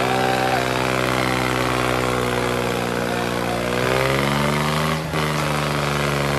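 Eicher tractor's diesel engine running hard under load in a tractor tug-of-war, its pitch rising slightly about four seconds in.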